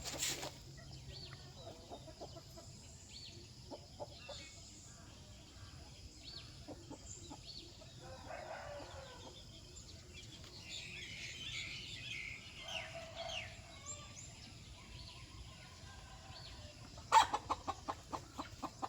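Chickens clucking, with a rooster crowing, faint and scattered through most of the stretch. Near the end a louder run of quick, evenly repeated sharp sounds begins.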